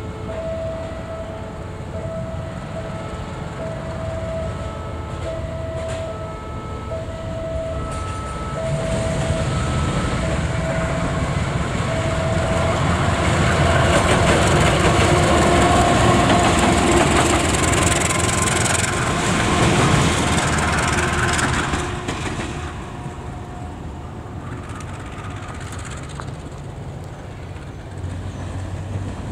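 A diesel-electric locomotive running light, with no train behind it, passes close by: its engine and wheel noise swell to a loud peak in the middle and fall away after about 22 seconds, leaving a quieter rumble. Before it arrives, a pulsing electronic beep repeats a little faster than once a second and fades out.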